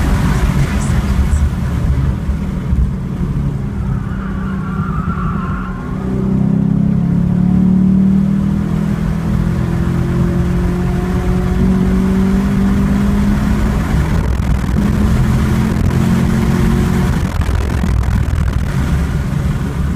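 2014 Chevrolet Camaro SS 1LE's V8 heard from inside the cabin, running hard on track. It eases off and drops a gear for a slow corner about six seconds in, then its pitch climbs steadily as it accelerates onto the next straight.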